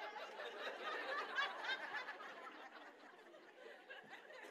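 A church congregation laughing and chuckling at a joke, many voices at once. It is loudest a second or two in and then dies away.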